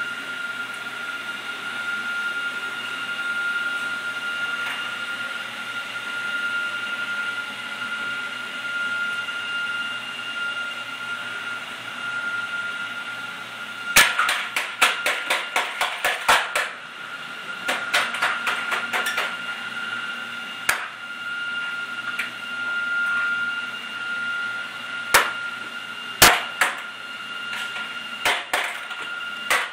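Toy tool striking a plastic toy workbench: quick runs of sharp taps about halfway through, then scattered single knocks, over a steady high whine.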